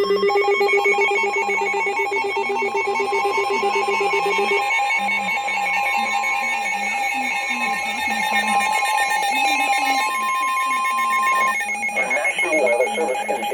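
NOAA Weather Radio emergency alert: a loud jumble of buzzing, beeping electronic tones with a voice faintly underneath. Then a single steady high alert tone, which cuts off about eleven and a half seconds in as the broadcast voice begins.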